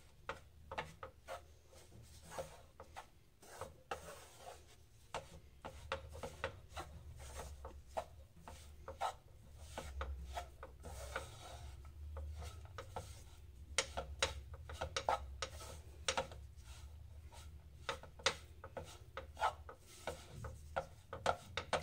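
Wooden spatula scraping and stirring dry, crumbly gram flour and ghee against a non-stick kadhai in quick, irregular strokes: besan being roasted slowly for laddu.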